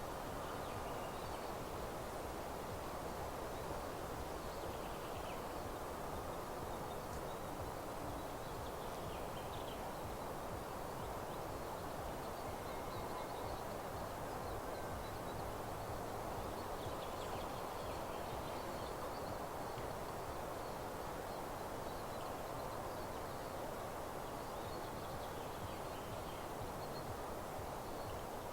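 Faint, scattered songbird calls over a steady, even rustling background noise.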